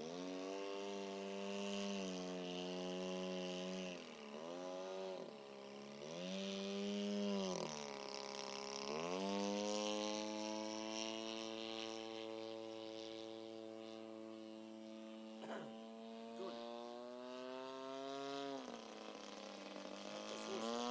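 Two-stroke opposed-twin petrol engine of a radio-controlled Yak-54 model aircraft running in flight, a buzzing note whose pitch dips and recovers three times in the first half, holds steady and high for about ten seconds, then drops near the end.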